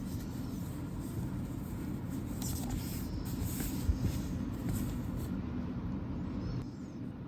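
Steady low background rumble, with a few faint rustles and a light click about four seconds in.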